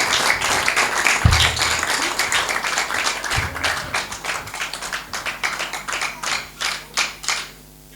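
Congregation clapping, dying away near the end.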